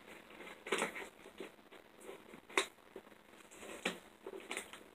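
Scissors snipping and scraping at the packing tape on a cardboard box, a few separate sharp snips with light cardboard rustling between them.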